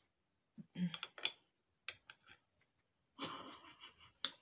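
Close-up eating sounds: a few soft mouth clicks and smacks in the first two seconds, then a breathy rush lasting about a second, ending in a sharp click near the end.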